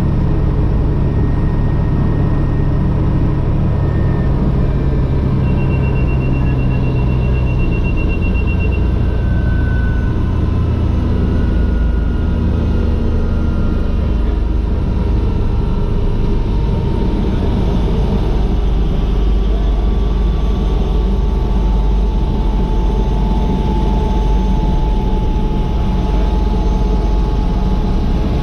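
Agusta AW119's single Pratt & Whitney PT6B-37A turboshaft and main rotor running, heard inside the cockpit as a steady low rumble, with faint whines slowly falling in pitch as the engine is throttled back from flight idle toward ground idle and rotor speed drops. A rapid beeping warning tone sounds for about three seconds, starting about five seconds in.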